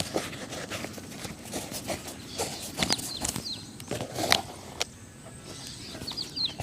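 Irregular taps, knocks and scrapes of shoe-shining work by a street cobbler, with a few short falling bird chirps.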